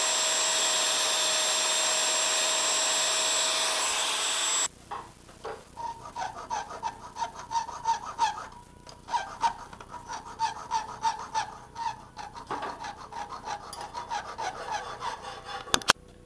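Angle grinder cutting into a Damascus steel blade blank, a steady loud whine that stops abruptly after about four and a half seconds. Then rhythmic back-and-forth strokes of a hand tool scraping on the steel, about two a second, ringing faintly, ending with a sharp click.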